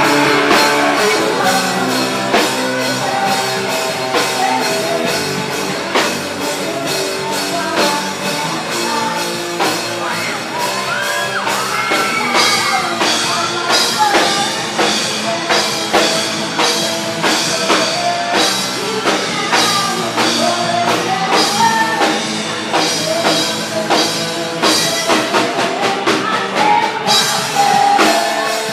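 Rock band playing: guitars and a drum kit keeping a steady beat, with a lead singer's voice coming in about ten seconds in.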